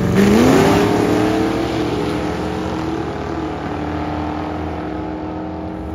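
Drag cars launching at full throttle: a V8 station wagon and a pickup truck leave the line, engine pitch climbing fast through the first second, then a steady high engine drone that slowly fades as they run away down the strip.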